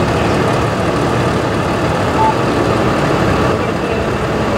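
Truck engines idling steadily, a continuous low rumble.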